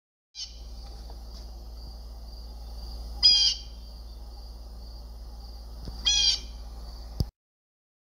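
Blue jay giving two short calls about three seconds apart. A faint steady high hiss and low hum run underneath.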